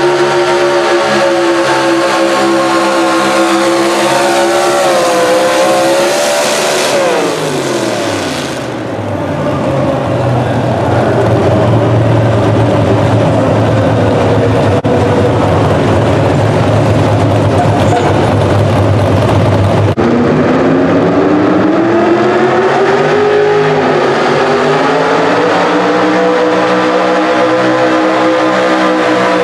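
Pro stock mini truck pulling engines running at full throttle under the load of a weight sled. About seven seconds in, the first engine's pitch falls away steeply as it winds down, leaving a steadier, lower rumble. About twenty seconds in a second truck's engine takes over, climbing in pitch and then holding high revs.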